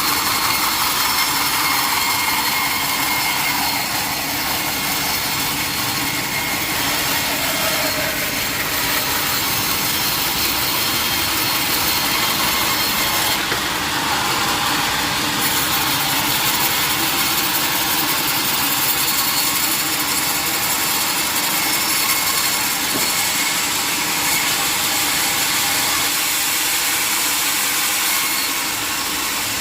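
Sawmill blade cutting lengthwise through a mahogany log, a steady continuous sawing noise that eases a little near the end.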